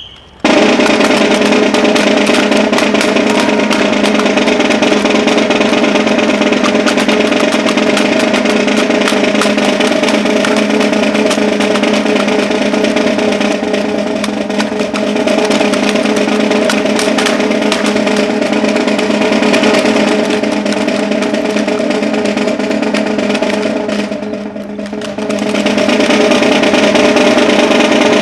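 Marching snare drums played as a long, continuous roll with rapid strokes. The level dips briefly near the end, then swells back up.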